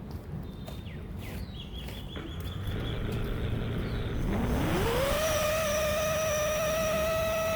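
Home-built 5-inch FPV quadcopter's brushless motors spinning up: a whine rises steeply in pitch about four seconds in, then holds a steady, loud pitch. A few faint clicks come before it.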